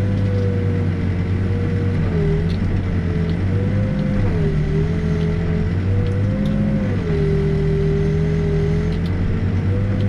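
Backhoe's diesel engine and hydraulics running while digging, heard from the operator's cab. A steady whine dips and rises in pitch a few times as the machine takes and sheds load.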